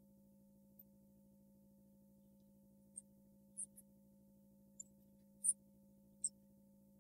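About five short, sharp computer-mouse clicks in the second half, the loudest a little before the end, over a faint steady electrical hum.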